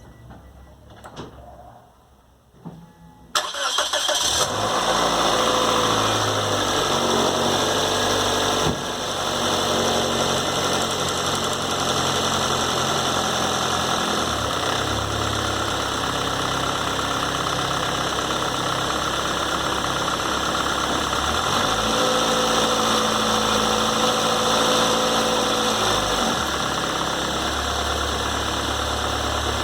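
2006 Toyota Corolla engine cranking and catching about three seconds in, then idling steadily, with a few small shifts in the idle. It starts without the earlier start-up noise, which a timing belt replacement has cured.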